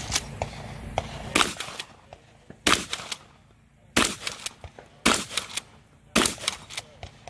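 Five shots from a Remington 870 pump-action shotgun, fired about a second apart, with the clack of the pump being worked between them.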